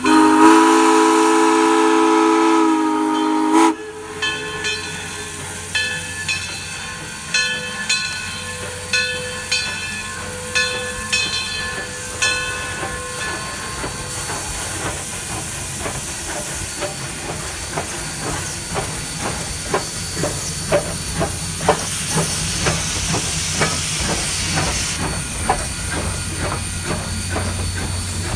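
Steam whistle of Great Smoky Mountains Railroad locomotive #1702 blowing one long chord that cuts off about three and a half seconds in. A bell then rings steadily for about ten seconds. After that comes loud steam hiss as the locomotive passes, with the cars' wheels clicking over the rail joints near the end.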